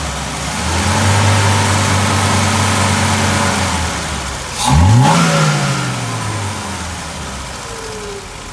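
BMW 2002 tii's fuel-injected four-cylinder engine revved: held steady at raised revs for about three seconds, easing off, then blipped sharply once about five seconds in. Each time it falls smoothly back to a settled idle, a sign that the freshly tuned Kugelfischer mechanical injection is responsive, stable at higher rpm and returning cleanly to idle.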